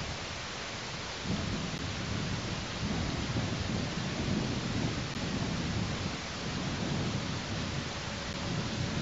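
Wind buffeting an outdoor microphone: a steady hiss with low, irregular rumbling gusts.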